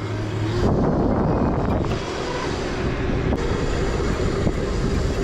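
Wind rushing over the microphone of a moving electric dirt bike, swelling about a second in and then holding steady, with a faint steady whine underneath.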